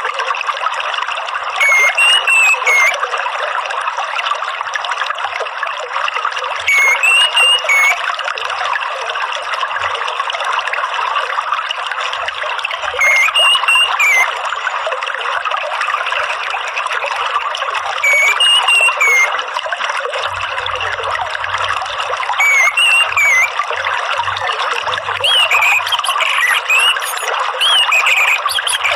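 Steady trickling running water with short whistled phrases from an orange-headed thrush (anis merah) over it, roughly every five seconds, several in quick succession near the end. It is a therapy and lure recording meant to set a caged anis merah singing.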